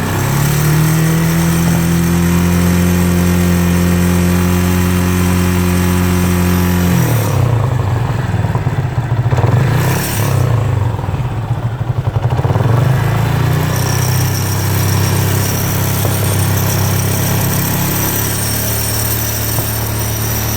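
Yamaha Fazer 250's air-cooled single-cylinder engine running, held steady for about seven seconds, then going uneven and pulsing for several seconds before settling back to a steady note. The side-stand pin is vibrating against its bolt: the ugly noise the owner is chasing.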